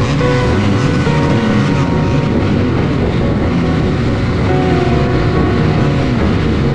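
Motorcycle engines running steadily at low speed as the bikes roll slowly along.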